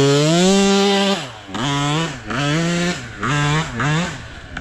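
Small off-road dirt bike engine revved in bursts by a beginner rider working the throttle: one held rev of about a second, then four or five shorter throttle blips, each rising and dropping back.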